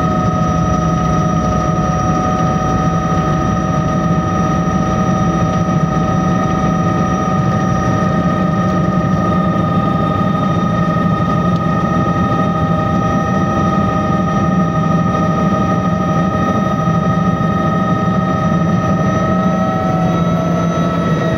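Bell 206 JetRanger heard from on board, running on the ground: the Allison 250 turboshaft's steady high whine over the dense low rumble of the turning rotor. One of the whines dips slightly just at the end.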